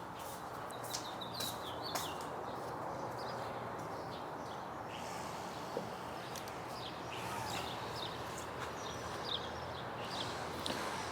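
Birds chirping outdoors, many short high calls scattered throughout, over a steady background hum.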